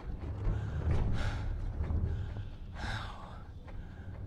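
A man breathing hard, with two loud, breathy gasps, about a second in and near three seconds, over a low steady rumble.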